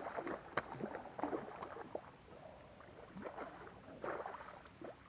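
Hooked fish thrashing and splashing at the water's surface beside the boat during the fight, in irregular bursts of splashing. A sharp click about half a second in.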